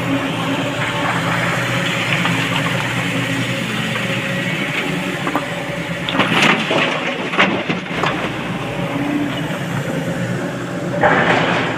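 An engine running steadily, with a few sharp clatters about six to eight seconds in and a louder rush of noise near the end.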